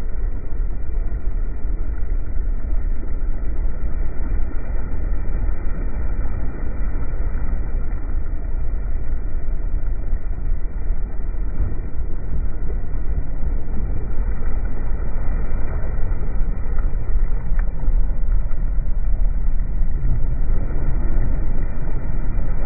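Personal watercraft (jet ski) running at speed: a steady rumble of its engine and the rushing water and spray around the hull.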